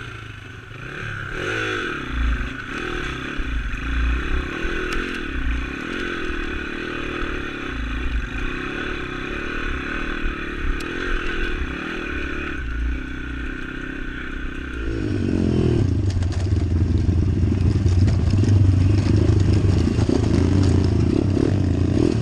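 Pit bike's YX 140 four-stroke single-cylinder engine running at low, uneven revs while stopped. About fifteen seconds in it revs up and runs louder and steadily under load as the bike rides on.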